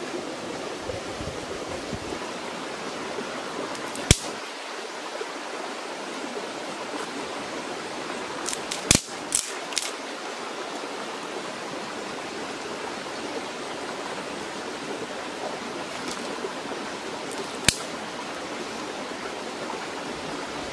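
Steady rush of stream water, broken by a few sharp clicks or knocks: one about four seconds in, a quick cluster about nine seconds in, and one more near the end.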